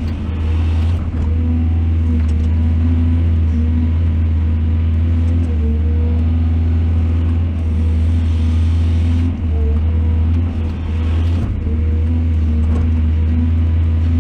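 Heavy excavator engine running steadily with a deep, even hum, dipping briefly twice in the second half.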